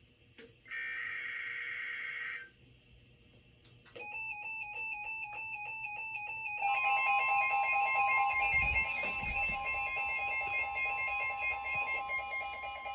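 NOAA Weather Radio Emergency Alert System alert starting: the end of the SAME digital header, two short buzzing data bursts, then after a pause a pulsing beep, joined about six and a half seconds in by steady alert tones that layer over it, including the long continuous weather radio warning alarm tone.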